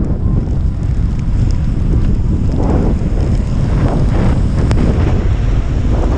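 Loud wind buffeting a helmet-mounted camera microphone as a mountain bike speeds downhill on a wet road in windy rain: a heavy, noisy rumble that swells and eases every second or so.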